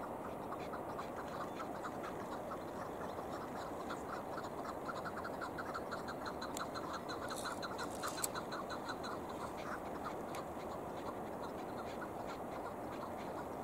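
Chukar partridge calling: a fast run of short, repeated clucking notes, several a second, over steady background noise. The notes die away a few seconds before the end, and there is a single sharp click about eight seconds in.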